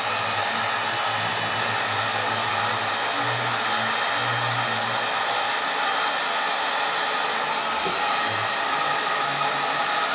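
Electric heat gun blowing steadily, shrinking heat-shrink tubing over a soldered resistor joint on a wire.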